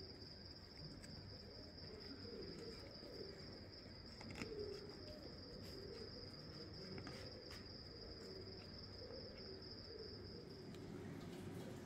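A cricket trilling in one continuous high, steady note that stops near the end, with a few faint clicks over it.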